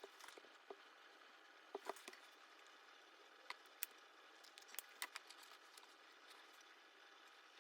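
Faint, scattered small clicks and taps, with a few sharper ones about two seconds in and again around four to five seconds in, over a low steady hiss.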